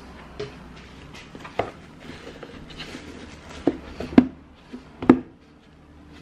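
Clear plastic wrap crinkling and rustling as hands fold it around a container and press it flat, with a few sharp knocks in the second half, the loudest a little after four seconds and about five seconds in.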